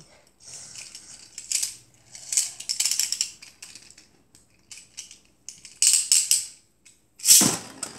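Plastic Beyblade string launcher being handled and wound: several short bursts of clicking and ratcheting, with a louder burst about seven seconds in.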